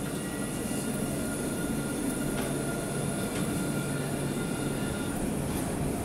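Alstom Citadis electric tram running past at close range: a low rumble and hum with several thin, steady high whining tones from its electric drive, the whine stopping about five seconds in.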